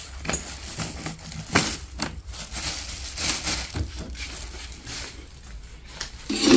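Thin plastic bag crinkling and rustling as it is handled, with a few light knocks of a plastic basket being picked up and moved.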